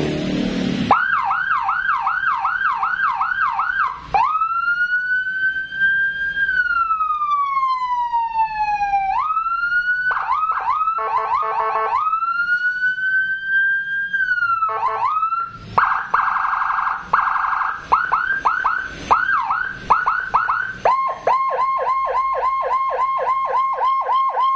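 Electronic police siren with Whelen 295SL tones, run through a 100-watt amplifier and 100-watt speaker, being tested through its modes. A fast repeating yelp starts about a second in, followed by a long wail that rises and slowly falls, short rapid bursts, a second wail, a fast warble, and quick pulsing chirps near the end.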